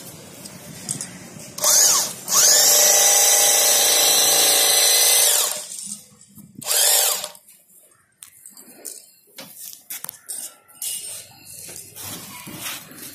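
Revo portable electric bag-closing sewing machine stitching shut a woven plastic sack. There is a brief burst, then a steady run of about three seconds that winds up at the start and down at the end, then another short burst. Faint clicks and handling noises follow once the stitching stops.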